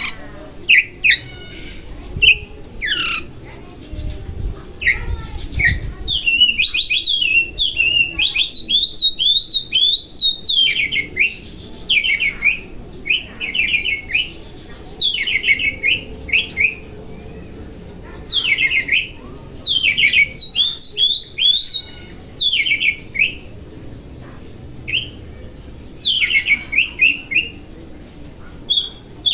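Oriental magpie-robin (kacer) singing in quick, varied phrases of sharp whistles and rapid trills, a lure song meant to provoke other magpie-robins into singing. A few dull low thumps come about four to six seconds in.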